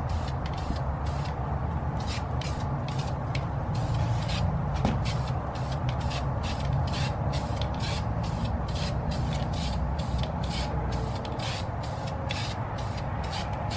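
Aerosol spray can of metallic base-coat wheel paint hissing in many short bursts, about three a second, laying down a light first dusting coat. A steady low rumble runs underneath.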